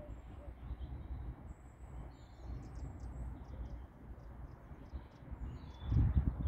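Small birds chirping in the background over a steady low rumble of wind on the microphone, with a louder stretch of low buffeting near the end.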